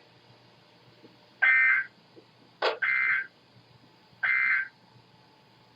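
Emergency Alert System end-of-message data bursts: three short, identical digital warbles, a bit under half a second each, spaced evenly. They mark the close of the severe thunderstorm warning. A short click comes just before the second burst.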